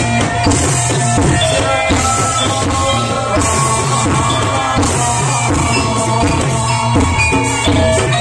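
Loud live barongan accompaniment music: drums beating fast and steadily under the ringing tones of gamelan metal keys.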